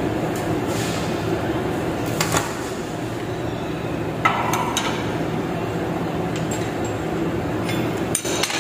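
Metal hand tools and parts clinking against a steel bench vise: a few sharp, separate clinks, the loudest about four seconds in and a cluster near the end, over a steady low hum.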